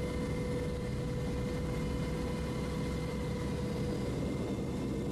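Aircraft engine noise heard from inside the cabin: a steady low rumble with a constant whine.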